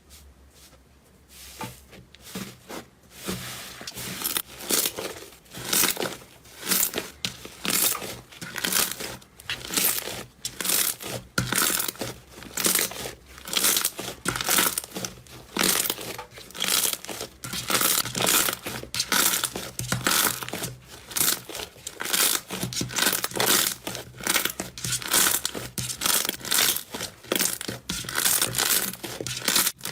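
Slime being squeezed and kneaded by hand, in repeated noisy strokes about one or two a second, faint at first and louder after a couple of seconds.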